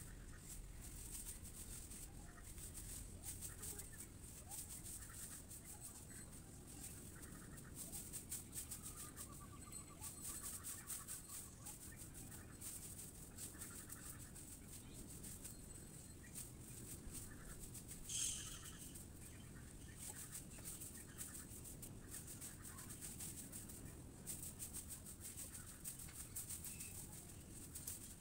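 Chickens clucking faintly, in scattered short calls, with one sharper, louder call about two-thirds of the way through.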